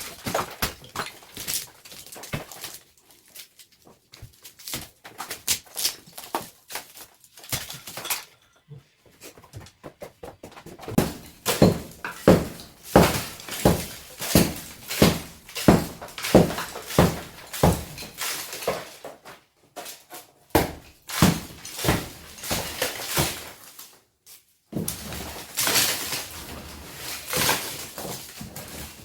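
Repeated knocks and thuds from hand repair work on an old clay house, with a run of strong, fairly regular blows about one or two a second in the middle, and rattling and scraping between them.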